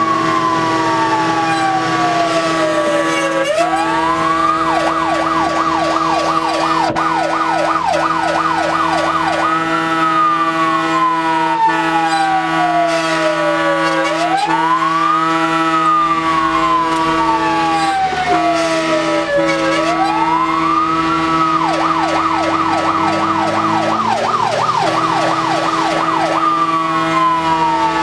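Fire engine's electronic siren heard from inside the cab, alternating between a slow wail that rises and falls every few seconds and two stretches of fast yelp at about two sweeps a second, with the truck's engine running underneath.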